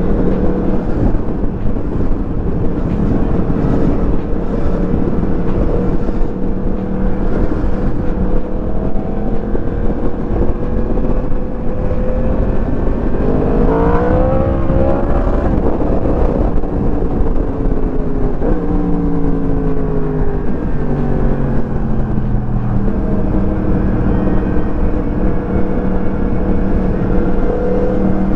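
Motorcycle engine running under way with a steady rush of wind and road noise. About halfway through the engine revs up sharply as it accelerates, then its pitch steps and falls away through the shifts and the slowing that follow.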